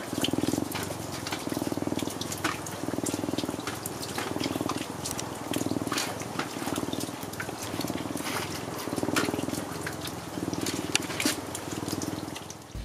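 Eurasian lynx purring steadily while being stroked, the purr swelling and easing about once a second with each breath in and out, with scattered soft clicks over it.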